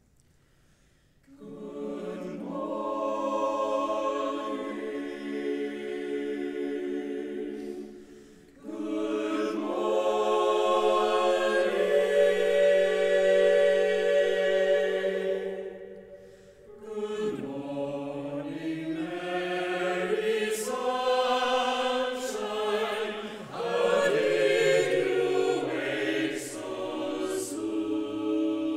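Mixed chamber choir singing a cappella in held chords, entering about a second in and singing three phrases with short breaks between them.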